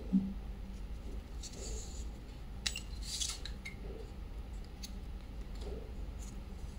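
Small metal scissors snipping a yarn tail: a few short, crisp cuts, the loudest about three seconds in.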